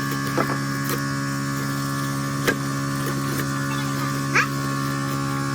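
A steady electrical hum of workshop machinery, with a few sharp metallic clinks and knocks of tools on suspension parts.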